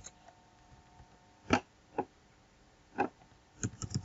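Computer keyboard keystrokes: three separate key clicks about half a second to a second apart, then a quick run of taps near the end as a word is typed, over a faint steady hum.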